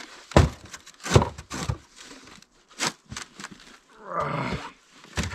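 Plastic water jugs, frozen solid, knocking and thudding in a plastic milk crate as it is tipped and set back down on a wooden table, several sharp knocks in the first three seconds. A brief grunt of effort about four seconds in.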